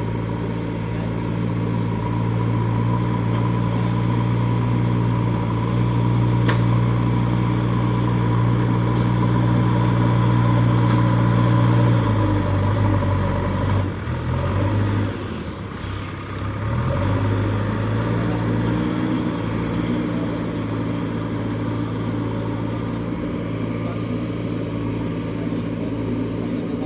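JCB backhoe loader's diesel engine running at a steady speed while the machine is load-tested after a repair. About twelve seconds in, the steady note breaks and sags for several seconds as load comes on, then settles back into an even run.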